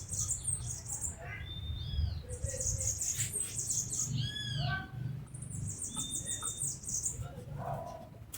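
Songbirds chirping: several high, rapid trills, each under a second long, with short arched whistled notes between them, over a low rumble.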